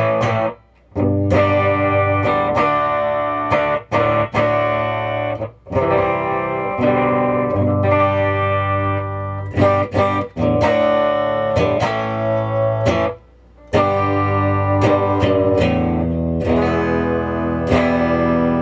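Electric guitar chords strummed through a small homemade tube amplifier, converted from a late-1950s Symphonic record player's amp (12SQ7 preamp, 50L6 output tube), driving a 12-inch Fender speaker in a cabinet. The chords ring out between sharp strums and are cut off briefly twice, about a second in and again near thirteen seconds.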